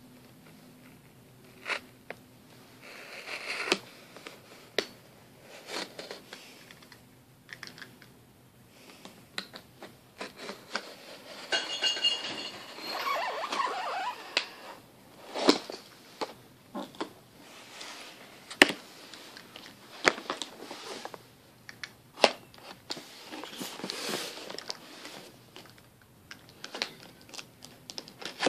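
Cardboard box being slit open with a knife and handled: stretches of scraping and rustling with sharp taps and clicks scattered throughout.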